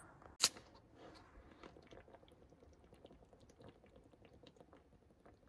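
A man drinking from a plastic water bottle: faint swallowing and small clicks and crinkles of the bottle. A single sharp click comes about half a second in.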